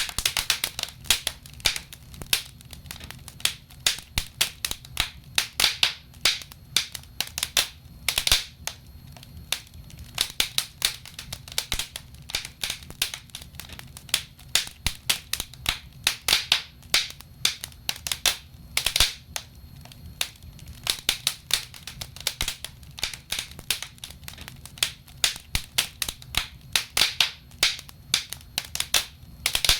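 Wood fire in a fireplace crackling, with irregular sharp pops and snaps, several a second and sometimes in quick clusters, over a low steady rumble of the burning logs.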